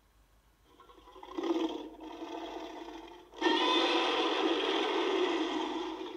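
Heisei-era Godzilla roar sound effect: a shorter rasping cry swells in, then a long, loud roar starts abruptly about three and a half seconds in and tapers off near the end.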